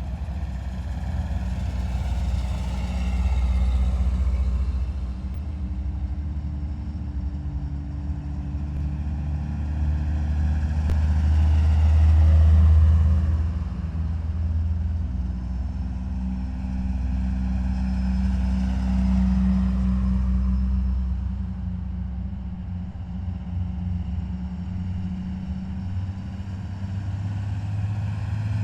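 A column of heavy military vehicles driving past one after another, a deep steady engine drone that swells and fades as each vehicle passes. The loudest pass comes about twelve seconds in.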